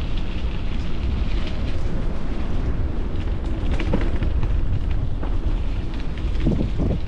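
Riding a bicycle: steady rumble of the tyres and wind on the microphone, with scattered knocks and rattles.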